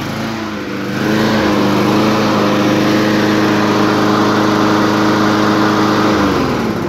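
Briggs & Stratton Quantum 190cc single-cylinder four-stroke engine on a walk-behind lawn mower, just started with one pull: it comes up to speed in the first second, runs steadily, then winds down near the end.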